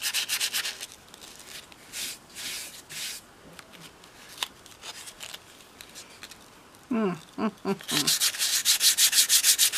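Sandpaper being rubbed by hand over filler on a doll's head: quick back-and-forth scratching strokes, about six a second, at the start, a few scattered strokes after, then fast sanding again from about eight seconds in. Just before the sanding resumes there is a short hum-like vocal sound lasting about a second.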